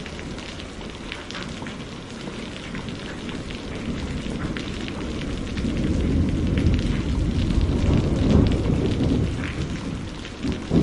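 Heavy rain falling, a steady hiss flecked with the patter of drops. A low roll of thunder builds about halfway through, is loudest a little later, and eases off near the end.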